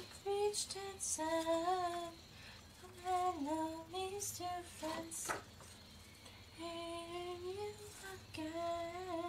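A woman singing a melody on her own, without accompaniment, in three phrases. Between the phrases come short rustles and taps of paper being handled and pages turned.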